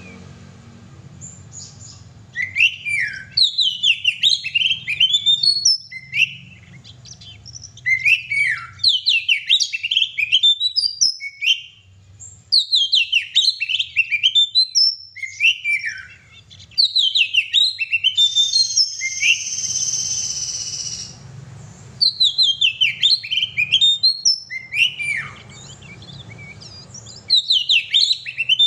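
Oriental magpie-robin (kacer) in full, vigorous song: phrases of rapid, varied whistles and chirps a few seconds long with short pauses between them. About two-thirds of the way through it holds one long, high note for a couple of seconds.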